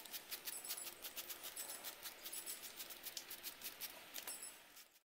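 Spray bottle squirting cleaner onto a small two-stroke engine in quick repeated pumps, a run of short hissing spritzes that cuts off suddenly near the end.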